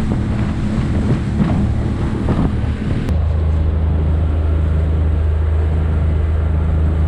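Motorboat running through choppy water, its engine droning under wind buffeting the microphone and the rough noise of the hull in the chop. About three seconds in the sound switches abruptly to a smooth, steady low engine hum with much less wind.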